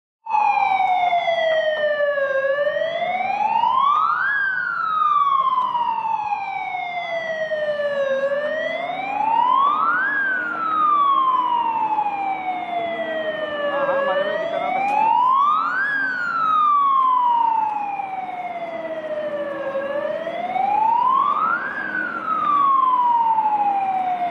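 Fire engine siren wailing in a slow, repeating rise and fall. The pitch climbs for about two seconds, then sinks for about four, a cycle roughly every six seconds.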